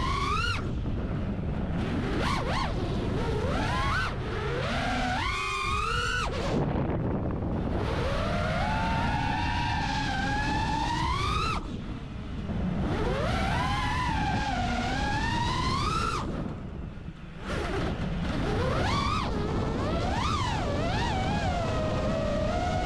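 FPV quadcopter's brushless motors and propellers whining, the pitch rising and falling with the throttle. The sound dips briefly about twelve seconds in and again about seventeen seconds in as the throttle is cut during flips. Wind rushes over the onboard camera's microphone.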